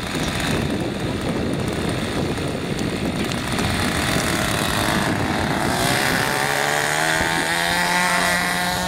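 Small engine of a homemade RC model airplane running and then revving up: about six seconds in its pitch climbs steadily as the plane rolls out for takeoff. Wind rumbles on the microphone underneath.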